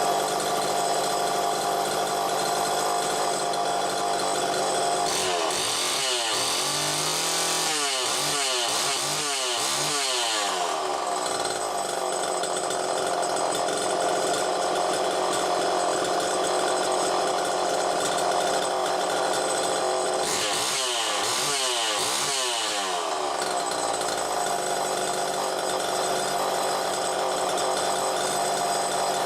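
Homelite Super XL Mini chainsaw's two-stroke engine running steadily, with its throttle blipped several times in a row twice, about five seconds in and again near twenty seconds, the pitch rising and falling with each blip.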